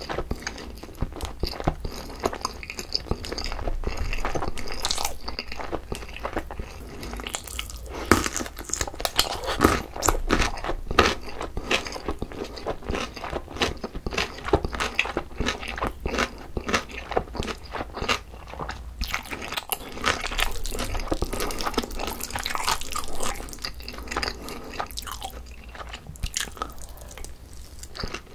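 A person chewing a mouthful of sauced chicken and rice close to the microphones, with many irregular, crisp crunches and wet mouth sounds.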